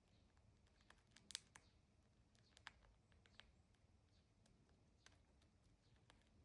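Cockatiel husking foxtail millet seeds off a millet spray: faint, irregular sharp clicks and cracks of its beak on the seed hulls, loudest about a second and a half in.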